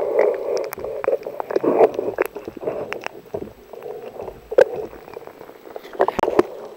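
Muffled water sloshing and bubbling through a camera's waterproof housing as a freediving spearfisher goes under from the surface and swims down, with scattered sharp clicks and knocks.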